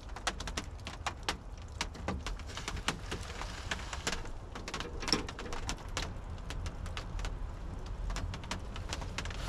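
Wet snow and drops tapping irregularly on the roof of a pickup's camper shell, several light taps a second, over a low steady rumble.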